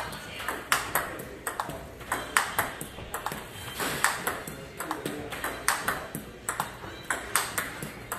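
Table tennis rally of repeated forehand drives against backspin balls. The plastic ball clicks sharply off the rubber bats and ticks on the table, about two to three clicks a second in a steady rhythm.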